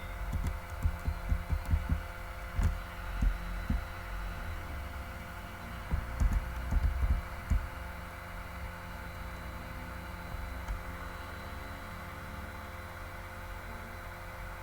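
Steady drone of a large airplane, with several held tones. Irregular low thumps come during the first few seconds and again around the middle.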